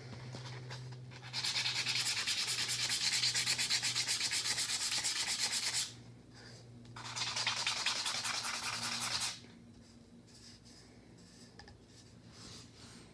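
Fast, even rubbing strokes like hand sanding, in two bouts: one of about four and a half seconds starting a little over a second in, then a shorter one of about two and a half seconds. A low steady hum runs underneath.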